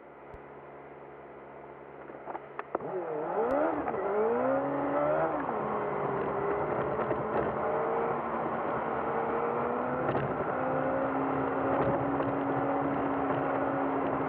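Car engine idling at a stop, then about three seconds in revving up through a few quick gear changes as the car pulls away, then running steadily at cruising speed with road noise. The recording plays at three times speed, so the pitch sweeps come very fast.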